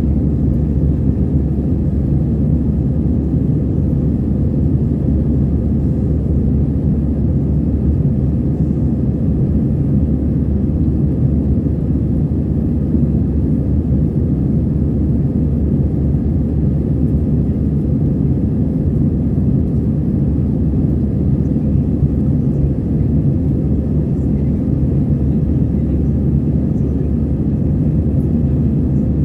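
Steady low rumble of an Airbus A320-214 in flight heard inside the cabin: its CFM56-5B turbofan engines and the rush of air along the fuselage during the climb out through cloud.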